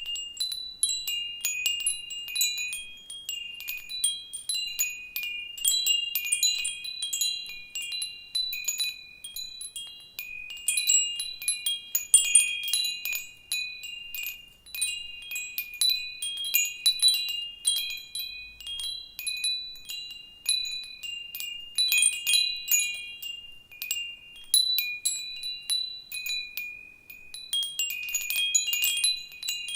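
Metal wind chimes stirred by a gentle breeze, ringing in irregular clusters of high, overlapping tones, with a few short lulls between gusts.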